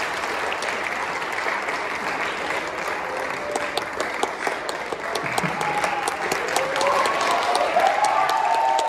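Audience applauding steadily, a dense patter of many hands clapping, with a few voices calling out over it in the second half.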